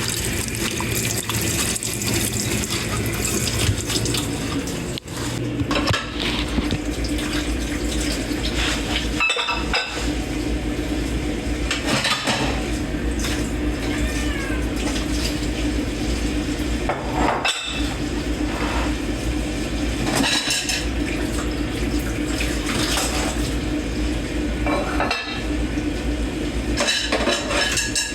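Dishes being washed by hand in a kitchen sink: a running tap with the clinking and clattering of dishes and cutlery against each other, the clatters coming irregularly over the steady water.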